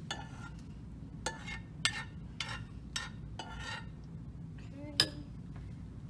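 Spoon scraping and tapping cooked oatmeal out of a saucepan into a ceramic bowl: a run of short scrapes and clinks roughly every half second, with a sharper clink about five seconds in.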